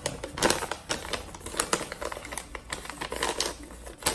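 Paper and packaging being handled: irregular rustling and crinkling with scattered clicks and taps.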